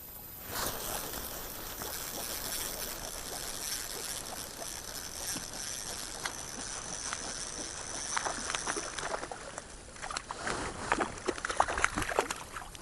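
Water sloshing and splashing, with a run of sharp clicks and knocks starting about ten seconds in.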